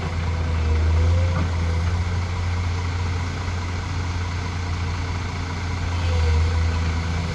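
Heavy diesel machinery running steadily with a low, even engine hum, and a faint higher whine that wavers briefly twice.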